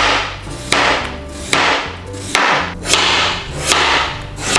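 Kitchen knife slicing peeled potatoes on a cutting board. The blade knocks through the potato onto the board about once every three-quarters of a second, six or so strokes in a row.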